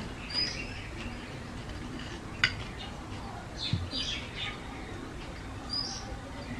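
Short high bird chirps, heard a few times, over soft wet eating noises of hands working in water-soaked rice. A single sharp click comes about two and a half seconds in.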